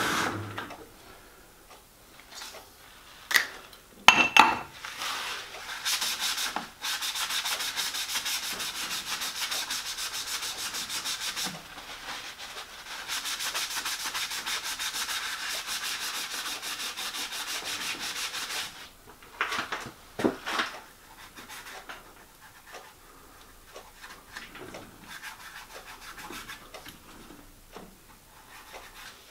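Steady gritty rubbing of a slit plastic-pipe lap, charged with abrasive compound and spinning in the lathe, working inside a steam cylinder bore to lap it smooth. It runs for about twelve seconds, with a few knocks before it and a couple of clunks after.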